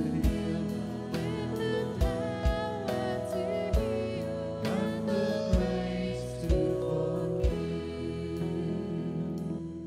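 Christian worship song: singing over held instrumental chords, with a low drum beat every second or so. It thins out and winds down near the end.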